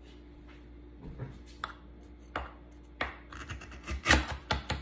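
Knife cutting through the crisp baked top crust of a pot pie in a baking dish: a few faint clicks at first, then from about three seconds in a run of crackling crunches, the loudest near the end.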